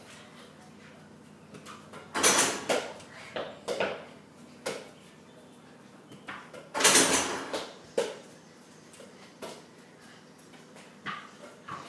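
A basketball hitting a mini hoop's backboard and rim and bouncing on the floor: two loud hits with a short rattle about two and seven seconds in, and smaller knocks between.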